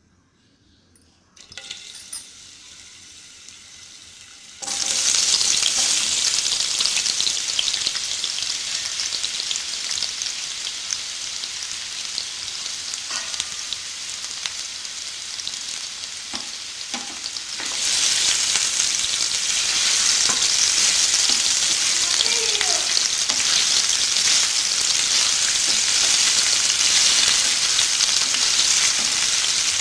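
Potato strips deep-frying in hot oil, sizzling. The sizzle starts suddenly a few seconds in, after a brief faint hiss, and grows louder again past the halfway point.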